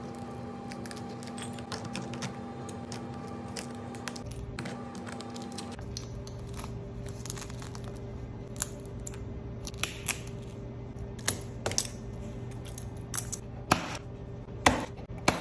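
Broken back-glass pieces of an iPhone 11 being chipped and scraped off the frame with a metal tool: scattered sharp clicks and glassy ticks, more of them in the second half, over a steady background hum.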